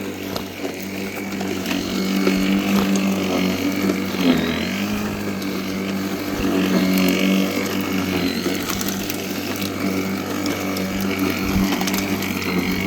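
Worx 40 cm battery lawnmower running and cutting grass: a steady motor-and-blade hum whose pitch sags briefly about four seconds in, then recovers.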